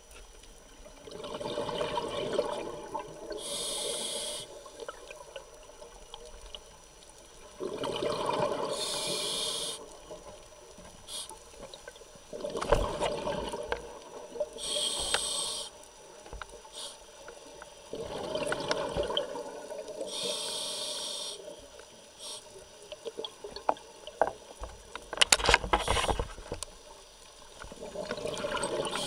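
Scuba diver breathing through a regulator underwater: slow breaths about every six seconds, each a drawn-out hiss followed by a short gush of exhaust bubbles. A few sharp clicks come near the end.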